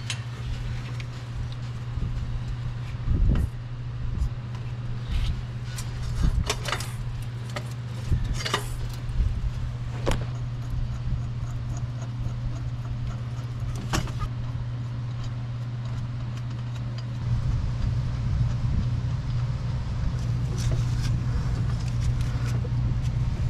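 Scattered metallic clinks and taps as exhaust up-pipe and turbo collector parts and metal crush washers are handled and fitted in an engine bay, over a steady low hum that gets louder about two-thirds of the way through.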